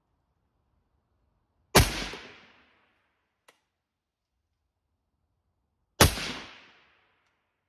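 Two rifle shots from a 16-inch 6.8 SPC AR-type rifle, about four seconds apart, each a sharp crack with a short echoing tail. A faint click falls between them.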